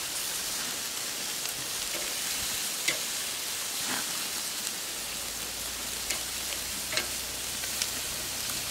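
Raw chicken thighs sizzling skin side down on the hot grate of a Weber charcoal kettle grill over ashed-over coals: a steady hiss with scattered sharp pops.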